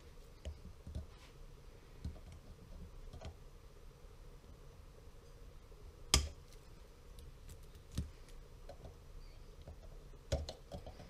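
Sharp metallic clicks and small knocks of circlip pliers and a new snap ring against a Ducati 848 gearbox shaft as the ring is worked over the shaft. The loudest click comes about six seconds in, another near eight seconds, and a quick run of clicks near the end.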